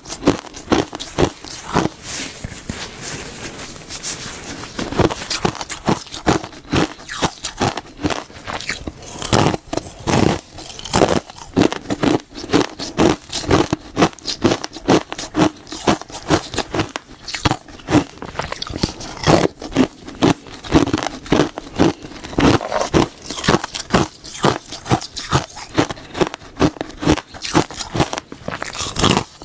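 Close-miked biting and chewing of something hard and crunchy: a dense run of sharp crunches, several a second.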